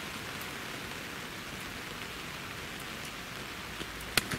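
Steady rain falling, an even hiss without letting up. A single sharp click stands out near the end.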